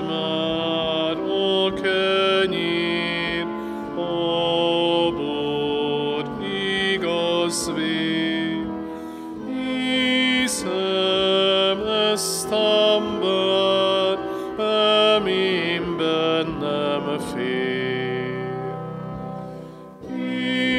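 Slow church hymn music for communion, with long held notes that change every second or two and short breaks between phrases.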